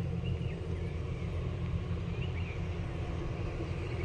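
Low, steady engine drone with faint short bird chirps over it.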